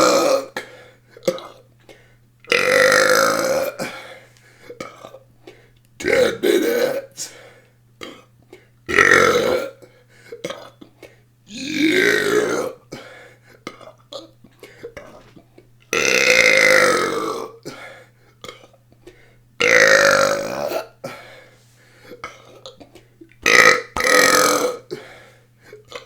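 A person burping deliberately in a long series, seven loud drawn-out burps, each about a second long, coming every three to four seconds, forced up from swallowed air.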